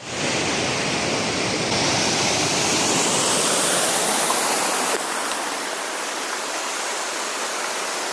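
Waterfall pouring heavily, a loud steady rush of water that drowns out speech. It is swollen with water after a week of rain.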